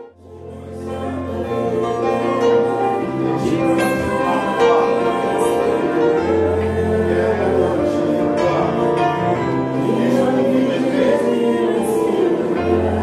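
Music: a slow piece with long held bass notes that change every few seconds under a wavering melody, starting after a brief dip in loudness at the outset.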